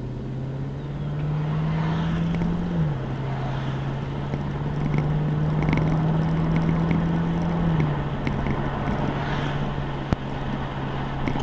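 LS1 V8 engine heard from inside the car while driving: the revs climb gradually and drop sharply at a gear change about three seconds in and again near eight seconds, then the engine runs steadily over road noise.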